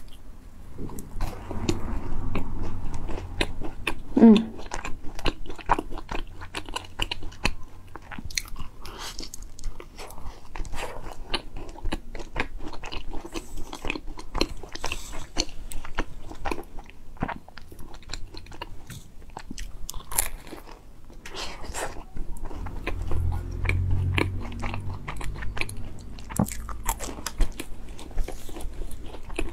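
Close-miked eating of a macaron: the crisp shell crunching and crackling under the teeth as she bites, then chewing, with many small sharp crunches throughout.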